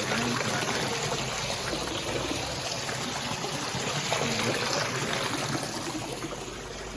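Shallow water trickling and running steadily along a small irrigation channel.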